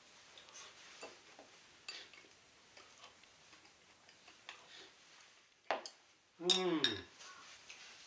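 Wooden chopsticks clicking lightly and irregularly against a ceramic rice bowl and plate while eating, with one sharper click near six seconds in. Right after it comes a short, low 'mm' from a man's voice, falling in pitch, the loudest sound.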